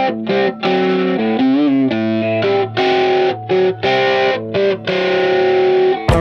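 Background music: chords played in short, stop-start bursts broken by brief gaps, with a wavering, bending note about a second and a half in.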